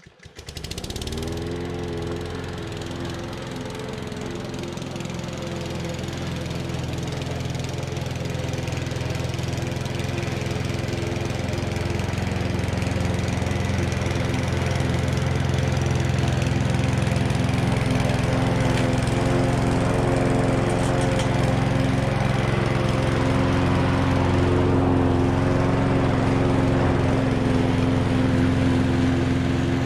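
Small engine of an old Hecht walk-behind lawn mower running steadily while mowing. Its pitch rises briefly near the start, and it grows gradually louder as the mower comes closer.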